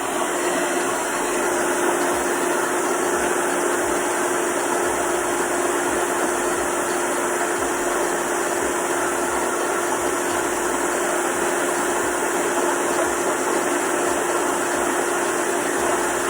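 Hair dryer running steadily at one speed, a constant whooshing blow with an even hum, drying the adhesive spray on a lace wig's edge.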